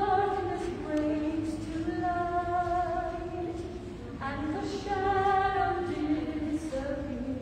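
A woman singing solo into a handheld microphone, in slow, long-held notes.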